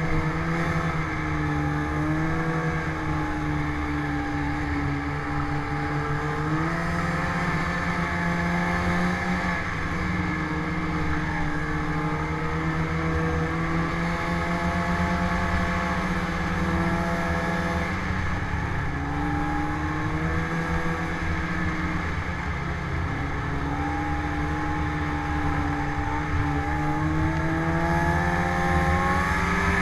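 Snowmobile engine running at trail speed, its pitch easing down and climbing again several times as the throttle is let off and opened, rising most near the end.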